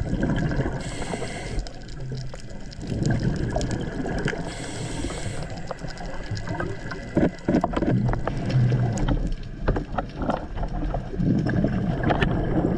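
A scuba diver breathing through a regulator underwater: two short hisses of inhalation and bursts of bubbles rumbling on the exhale, over a steady underwater rumble with scattered clicks.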